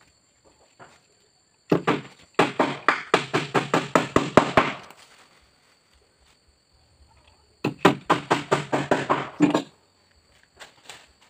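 Hammer driving nails into the meranti planks of a wooden canoe hull: two runs of quick blows, about five or six a second, the first about three seconds long, the second about two.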